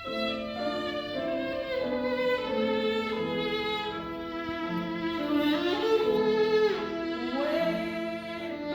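Solo violin played with the bow: a phrase of held notes with vibrato, sliding between notes a couple of times in the second half.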